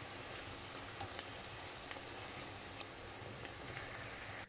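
Chanterelle mushrooms, onion and sour cream sizzling steadily in a frying pan, with a few light clicks and scrapes of a plastic slotted spatula stirring them.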